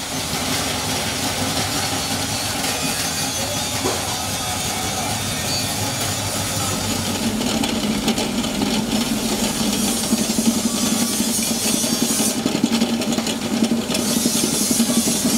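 Electric centrifugal oil spinner running, its motor driving a mesh basket of fried cassava chips round to throw off the frying oil. A steady low hum strengthens about halfway through, and the level turns uneven as the basket spins at speed.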